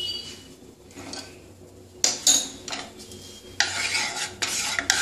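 Wooden spatula knocking and scraping a few times on a nonstick kadai, then scraping steadily around the pan from about three and a half seconds in as it spreads the heating oil.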